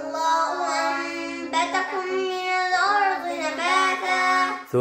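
A young boy's voice chanting a Quran verse in the melodic recitation style, drawing the syllables out into long held notes that slide up and down.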